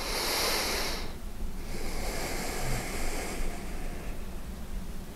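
A person breathing audibly close to the microphone, two slow hissing breaths: one at the start and a longer one from about two seconds in, over a low steady room hum.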